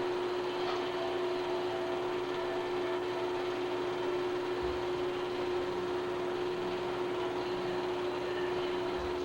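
Steady hiss with a constant low hum tone and no other distinct sound, the empty noise track of a silent 8mm film transfer.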